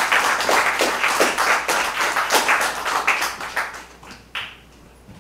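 Audience applauding: many hands clapping densely, thinning out and dying away about four seconds in, with a few last claps.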